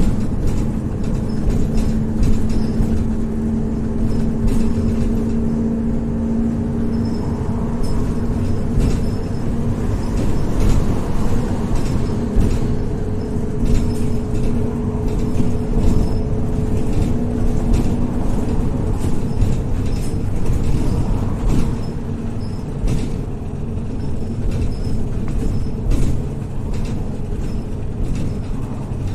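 Cabin noise inside a MAZ-103 city bus at highway speed: steady engine drone and road rumble, with frequent short rattles and clicks from the body.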